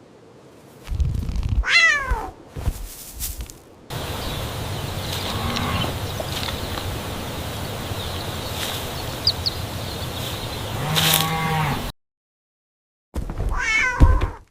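A cat meowing: three separate meows, each sliding down in pitch, about two seconds in, around eleven seconds and near the end. A steady hiss of background noise sits under the middle one.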